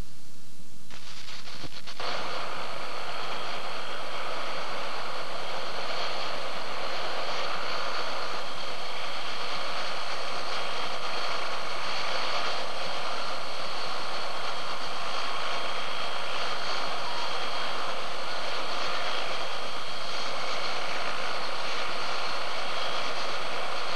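A helicopter's turbine engine running steadily: a constant rush with a faint whine, holding level with no rise or fall. It comes in about two seconds in.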